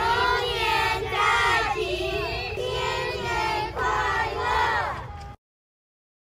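A group of children's voices together in several rising and falling phrases. They cut off abruptly a little over five seconds in, leaving a second of dead silence.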